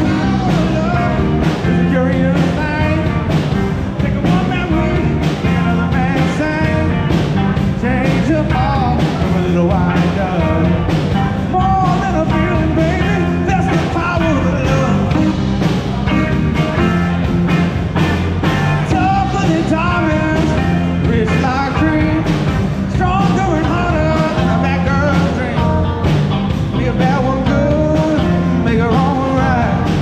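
Live rock band playing loud and steady: electric guitars, bass, drums and keyboard under a man's singing, picked up by a GoPro's built-in microphone.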